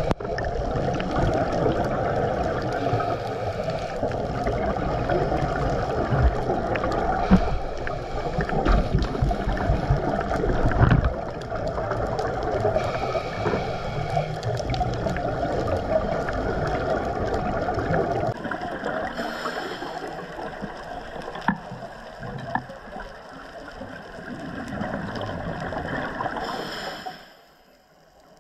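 Underwater sound picked up by a diver's camera: a steady rush of water with gurgling bubbles and a few light knocks. It thins out after about 18 seconds and falls away almost to quiet near the end.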